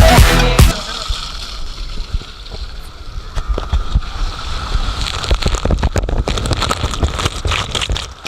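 Electronic dance music cuts off less than a second in, giving way to water splashing and sloshing, with many small irregular splashes.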